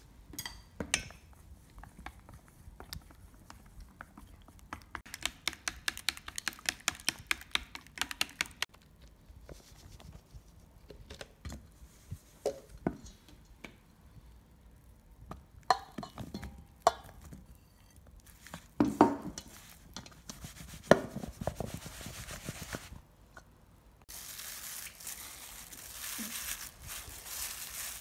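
A utensil stirring and tapping in a stainless-steel bowl of egg and cornstarch, with a run of rapid clicks against the bowl and scattered knocks. Near the end comes a steady rustle of a plastic-gloved hand working starch-coated banana pieces.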